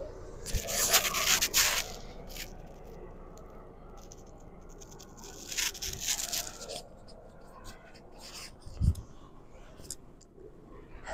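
Phone being handled and repositioned: rubbing and scraping against its microphone in two spells, about a second in and again around six seconds, then a single soft thump near nine seconds.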